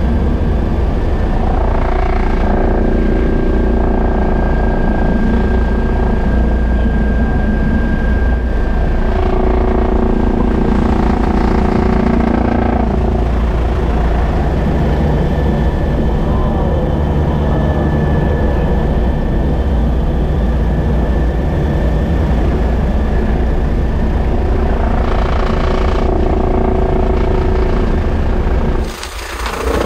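Twin-turbine BO105 helicopter in flight, heard from inside the doors-off cabin: a steady rotor and turbine din under heavy wind buffeting on the microphone. The level drops sharply near the end.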